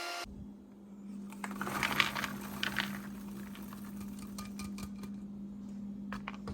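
A plastic microwave popcorn popper being handled: scattered clicks and a short rattle of popped corn about two seconds in, over a steady low hum.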